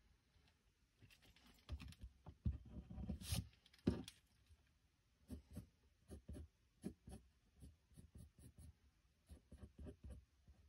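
Pencil scratching on sketchbook paper in short, irregular strokes. There is a busier, louder run of strokes with a sharp tap about two to four seconds in.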